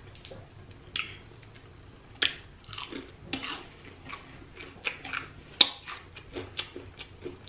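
A person chewing a bite of deep-fried battered seafood with her mouth close to the microphone: irregular crisp clicks and wet mouth smacks, the sharpest about two seconds in and again past five seconds.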